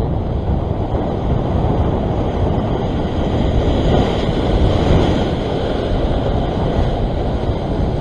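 Steady rush of strong wind on the microphone mixed with waves washing against the rocks, swelling a little midway.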